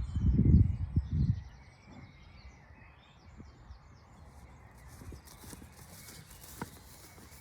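Wind gusting on the microphone in low rumbling buffets for about the first second and a half, then a faint outdoor background.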